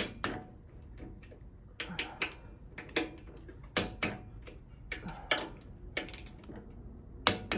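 Click-type torque wrench tightening handlebar clamp bolts, set to 15 pounds: a dozen or so sharp clicks at uneven intervals as the wrench is pulled and breaks over at its set torque.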